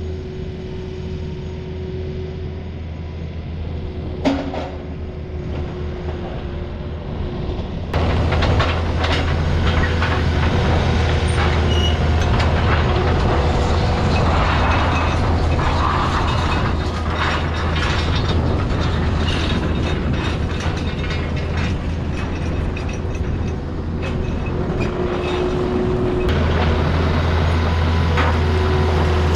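Takeuchi TL250 compact track loader's diesel engine running while it moves railroad rails on its forks, with its steel tracks and the rails clanking and rattling. A single sharp clank comes about four seconds in, and the engine and clatter get louder about eight seconds in.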